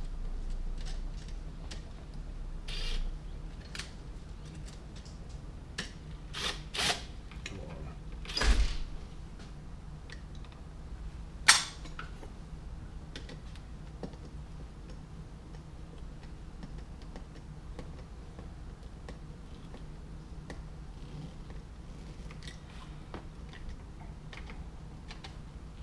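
Small clicks and scrapes of a screwdriver and wire ends being worked at a GFCI outlet's terminal screws, with one sharp click about eleven seconds in, over a low steady hum.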